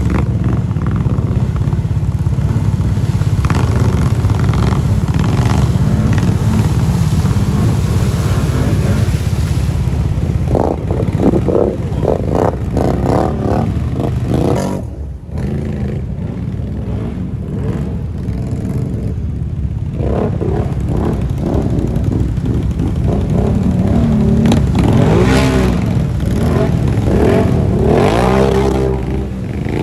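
ATV engines revving up and down as the quads are driven through a creek, with water splashing and spraying off the wheels. The revs climb and fall repeatedly near the end.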